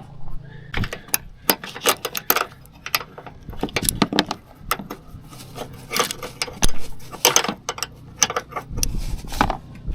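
Camping gear being handled while setting up camp: a quick, irregular run of clinks, clatters and rattles, like light metal and plastic parts knocking together, over a faint low steady hum.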